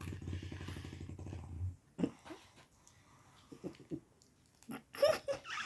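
A person snoring: a rattling, fluttering snore that stops abruptly about two seconds in, followed by a few short, faint sounds.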